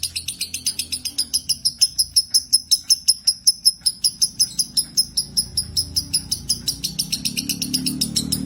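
Lovebird singing a long, unbroken run of rapid high chirps, about six a second, in the continuous 'konslet' style. A low hum sits beneath and grows louder near the end.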